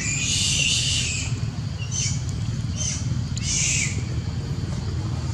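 Newborn long-tailed macaque crying in shrill, high-pitched squeals: one long cry at first, then several shorter ones, over a steady low rumble.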